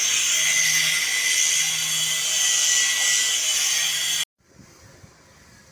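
Loud, steady, harsh hiss from steel fabrication work, cutting off abruptly about four seconds in.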